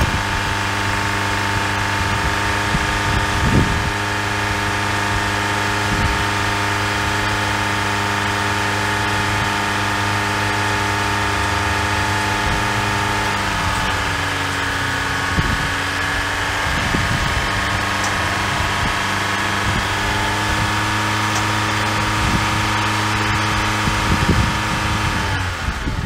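Car engine idling steadily as the donor vehicle in a jump start, charging a dead semi truck's batteries through jumper cables. The idle dips slightly a little past halfway and recovers several seconds later.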